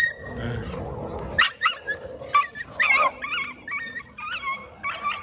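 Street dogs giving a rapid run of high-pitched yelps and whines, starting about a second and a half in.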